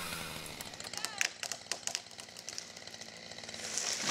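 Two-stroke chainsaw idling low after a felling cut, with a run of sharp cracks about one to two seconds in and a rushing swish near the end as the notched tree goes over.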